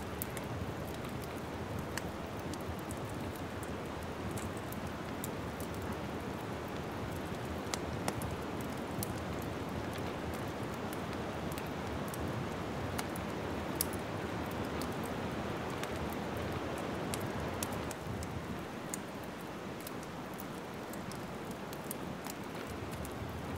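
Wood fire crackling in a fireplace: a steady hiss with frequent small snaps and pops, with a louder pop about eight seconds in and another near fourteen seconds.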